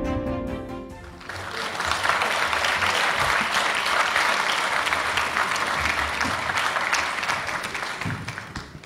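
A short piece of music ends about a second in, then an audience applauds steadily, dying away near the end.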